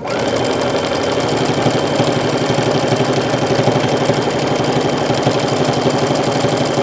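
Baby Lock Ellisimo sewing machine stitching steadily at speed through several layers of cotton, a fast, even run of needle strokes. It runs quiet, with no thumping, on a correctly sized size 12 universal needle.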